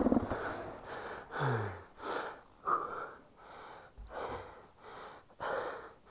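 Heavy, fast breathing close to the microphone, in and out roughly once a second: a rider out of breath after hard riding.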